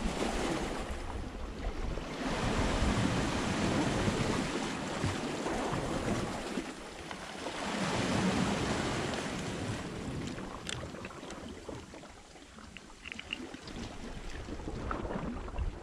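Sea surf washing against the rocks, with wind on the microphone: a noisy rush that swells twice and eases off again.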